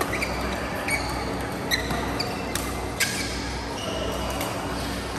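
Badminton rally in a large hall: sharp racket-on-shuttlecock hits roughly a second apart, with brief squeaks of court shoes.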